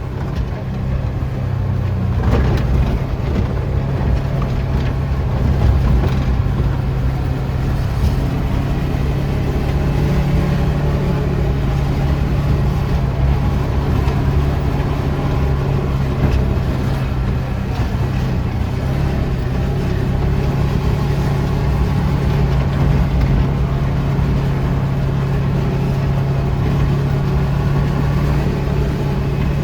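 A motor vehicle's engine running steadily while driving along, a constant low hum with rattle and road noise, heard from on board.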